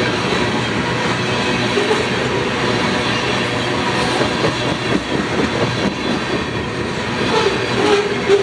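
Freight train tank cars rolling past: steady rumble and clatter of steel wheels on the rails.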